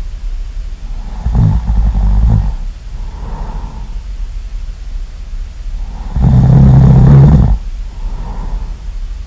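Really loud human snoring: two long, deep snores about five seconds apart, with softer breaths between them.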